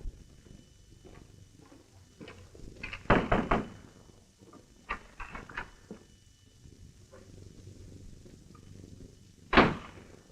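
Scattered knocks and thumps. The loudest are a quick cluster about three seconds in and a single heavy knock near the end, with smaller knocks about five seconds in, over the faint hiss of an old film soundtrack.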